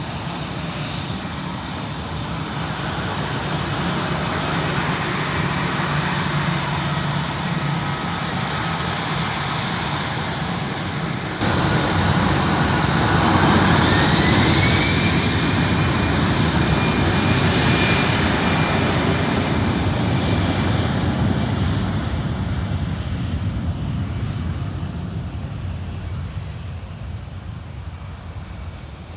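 Airbus A319 jet engines at takeoff power, growing louder, with a sudden step up in loudness about eleven seconds in and a whine rising in pitch shortly after; the sound then fades steadily as the airliner climbs away.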